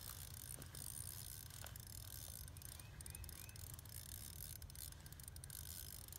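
Ice fishing reel clicking faintly as line is worked against a hooked lake trout, under a low steady rumble.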